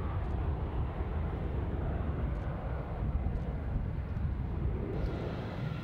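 Airbus A320-family airliner's twin jet engines at takeoff thrust: a steady low roar as it rolls and lifts off. About five seconds in the sound changes abruptly to a thinner jet noise with a faint whine.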